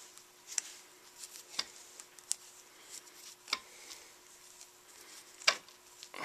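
Hands working vinyl electrical tape around a soldered battery-cable lug: a few scattered sharp clicks and crackles, the loudest about five and a half seconds in, over a faint steady hum.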